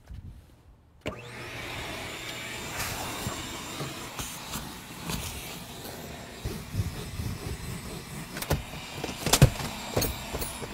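Shop vacuum switched on about a second in, then running steadily while its hose is worked over a minivan's seats and carpet. A few sharp knocks come late on, the loudest about nine seconds in.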